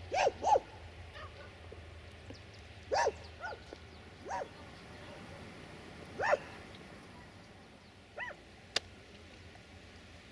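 A dog barking: a quick double bark, then single barks a second or more apart, over a faint low hum. A sharp click near the end.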